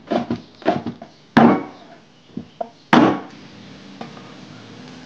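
Cleaver chopping fresh red chilies on a wooden cutting board: a quick run of about four chops in the first second, then two heavier knocks with a short ring, about a second and a half apart.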